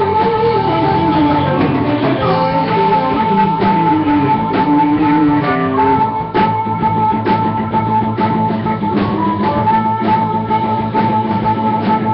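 Live rock band playing: electric guitar, bass and drum kit together, with a high note held over the top through most of it and a steady drumbeat.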